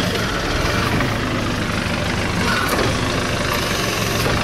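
Motor vehicle engine idling, a steady low hum.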